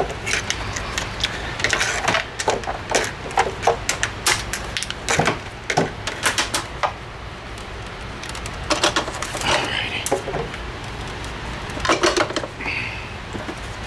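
A run of irregular, sharp clicks and knocks, thick over the first half and sparser after: handling noise of small metal parts and test wires on a metal workbench.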